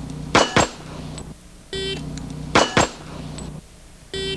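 Shot-timer start beep, then two quick pistol shots about a quarter second apart, fired from the draw. The sequence comes twice, and a third beep sounds near the end.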